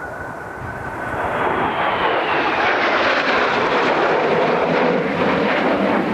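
Kawasaki T-4 jet engines passing close by. The noise builds over the first two seconds with a whine rising in pitch, then holds loud and steady.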